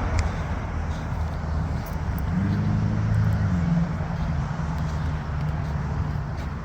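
Road noise of a moving car heard from inside, a steady low rumble, with a low engine hum coming in about two seconds in and holding.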